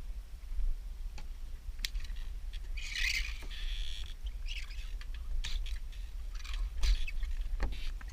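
Wind rumbling on the microphone, with short hissing splashes of water, the loudest about three seconds in.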